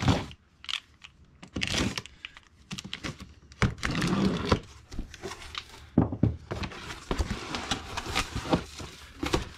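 Cardboard box and packaging being rummaged through while parts are lifted out. There are irregular knocks and bumps, and stretches of rustling, the longest about four seconds in and from six to nine seconds in.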